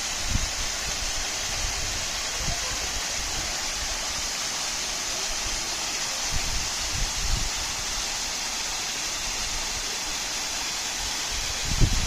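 Waterfall rushing: a steady, even hiss of falling water, with a few brief low thumps.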